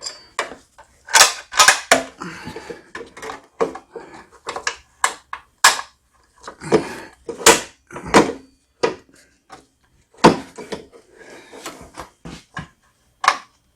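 Irregular clicks, knocks and rattles as the old auger engagement cable and its end fitting are worked and pulled through the frame of an MTD single-stage snow blower.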